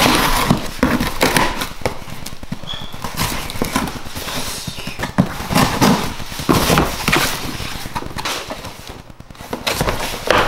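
A knife slicing the packing tape on a cardboard shipping box, then cardboard flaps being pulled open and handled, with irregular scrapes, rustles and knocks.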